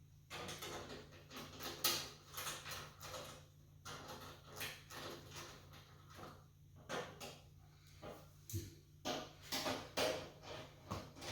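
Irregular scraping, knocking and rattling of hands and a small wrench working on the generator's battery cover plate, in uneven bursts with short pauses.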